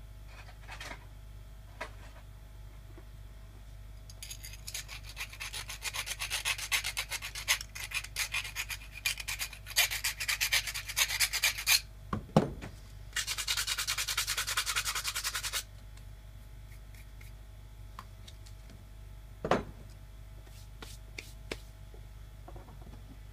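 Small hand file scraping on a copper pipe in quick back-and-forth strokes for several seconds, then a second, more even run of filing. A sharp knock falls between the two runs, and another single knock comes later.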